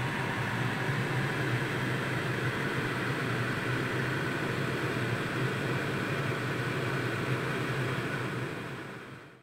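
Steady low hum with an even hiss over a pot of fish soup cooking on the stove, fading out at the very end.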